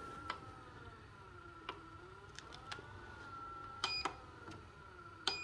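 Electric foot massager running, its motor whining with a pitch that slowly rises and falls as the rollers work. The control panel beeps twice as buttons are pressed, about four seconds in and again near the end.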